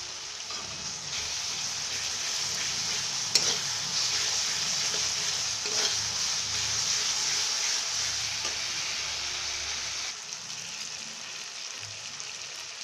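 Onion-tomato masala with a freshly added wet cumin and dried-chilli paste sizzling in hot oil in a kadai, stirred and scraped with a metal spatula; this is the masala frying down until the oil separates. The sizzle grows louder about a second in, eases near the end, and a single sharp click comes about three seconds in.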